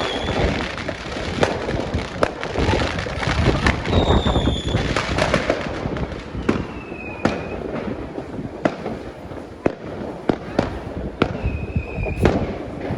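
Fireworks going off: a dense, continuous crackle and rumble with sharp bangs every second or so, and a few short whistles that fall slightly in pitch.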